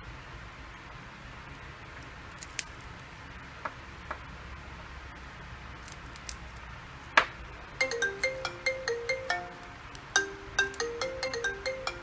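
A few small clicks from a thin prying tool working under the cracked edge of a Samsung Galaxy S6 Edge screen. Then, about eight seconds in, a quick melody of short bell-like notes starts up and keeps going: a ringtone-style tune.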